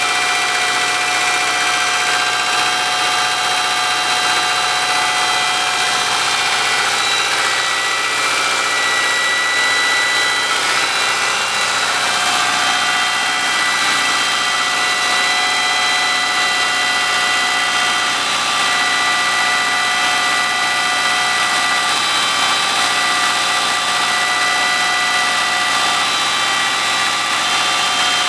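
Subaru Forester's flat-four boxer engine idling steadily while cold, with the knock of piston slap that shows on a cold engine.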